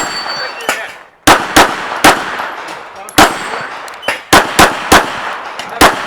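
Pistol shots fired by a competitor on a shooting stage, about ten in all, in quick doubles and triples with short pauses between, each followed by a short echo.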